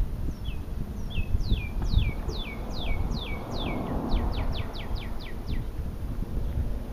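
A songbird singing one song: a series of downslurred whistled notes that speeds up about four seconds in into a quick run of shorter notes. A low steady rumble lies underneath.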